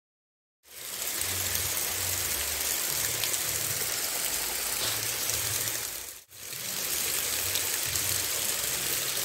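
Water rushing steadily over a small stepped weir into a shallow stream, a constant splashing hiss. It starts about a second in and cuts out for a moment about six seconds in.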